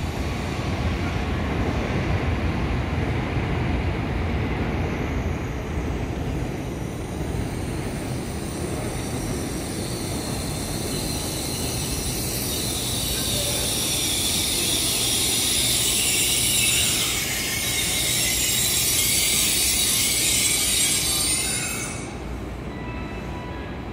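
N700S Shinkansen train arriving and braking along the platform: a broad rumble, then a high-pitched squeal that builds as the train slows and cuts off abruptly as it comes to a stop near the end.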